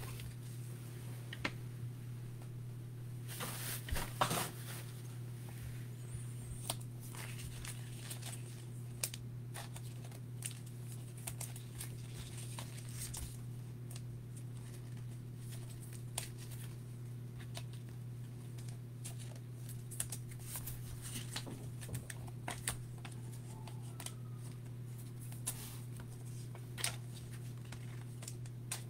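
Trading cards and thin plastic sleeves being handled on a table: scattered soft clicks and rustles, with a longer plastic rustle about four seconds in. A steady low hum lies under it.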